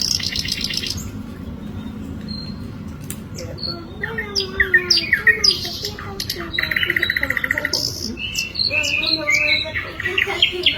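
A sikatan londo (flycatcher) singing a varied song of sharp chirps, whistled notes and fast buzzy rattling trills, with a short break early on before the song picks up again.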